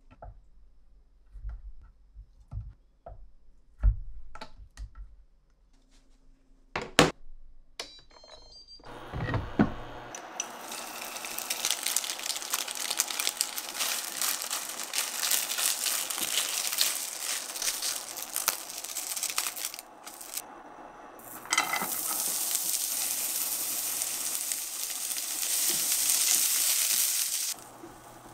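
Food frying in hot oil, sizzling and crackling steadily. It starts about nine seconds in, after a few scattered knocks and clicks, dips briefly about two-thirds through, and cuts off suddenly near the end.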